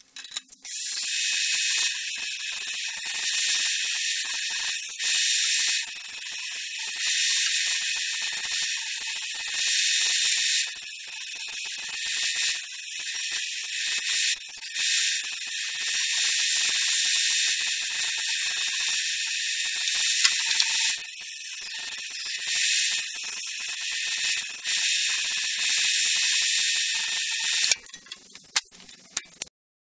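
Band saw running and cutting notches into a pine block, heard as a thin, high-pitched hiss that rises and dips as the wood is fed, and stops abruptly near the end.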